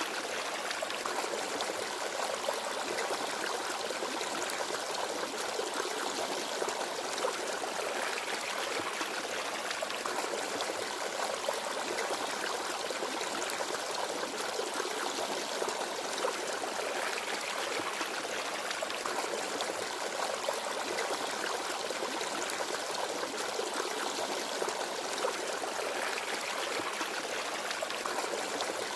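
Small forest stream babbling and trickling over stones: a steady, even water sound with many small splashes.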